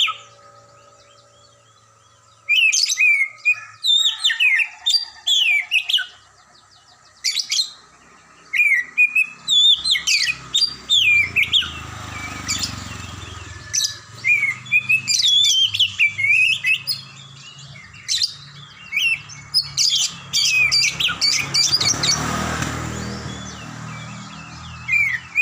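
Female oriental magpie-robin (kacer) calling in repeated bursts of short, falling whistled chirps with pauses between, the calls used as a lure to set male magpie-robins singing. A low rumble builds in the background from about ten seconds in, swells near the end, then fades.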